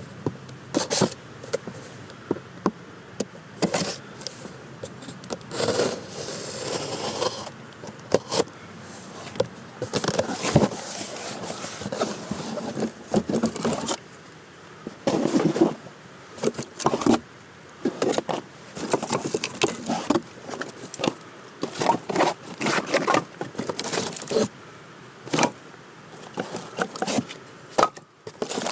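Irregular knocks, clacks and scrapes of firewood and camp gear being handled, with a longer scraping stretch about six seconds in.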